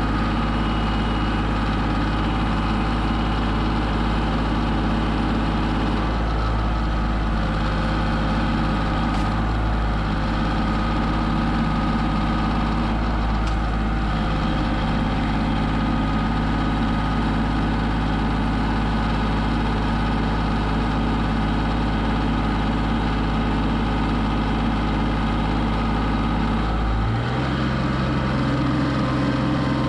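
Tractor engine running steadily while powering a front-mounted hydraulic auger boring into soil. Near the end the engine's note changes abruptly.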